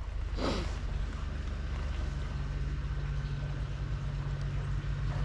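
Yamaha Ténéré 700's CP2 parallel-twin engine running steadily at an even pitch, with a brief rustling rush about half a second in.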